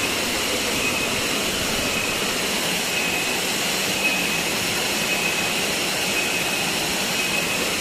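Waterfall rushing steadily, a dense, even roar of falling water.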